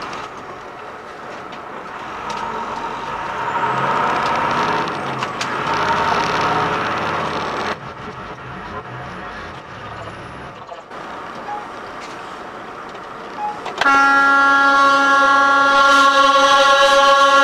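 Vehicle engine and road noise swelling as it pulls away from a stop. Then, after an abrupt drop, a loud steady vehicle horn sounds for the last three to four seconds.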